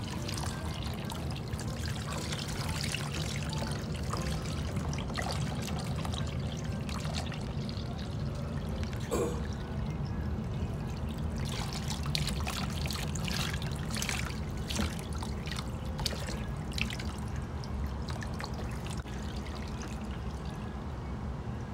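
Water steadily pouring and trickling into a plastic bath basin, with irregular splashes near the middle as a wet Pomeranian is washed by hand.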